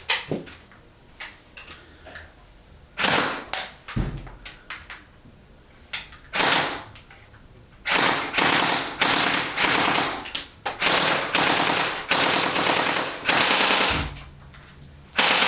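Electric airsoft AK rifle with a plastic-geared gearbox firing on full auto: the motor and gearbox cycle in rapid bursts. A few short bursts come first, then a string of longer bursts from about halfway, with one more near the end.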